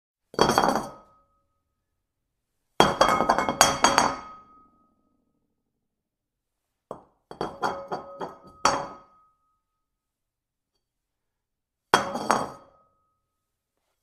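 A porcelain bowl dropped four times, each drop a short clatter of hits with a ringing note, separated by silence. The third drop is the longest, rattling through many quick bounces.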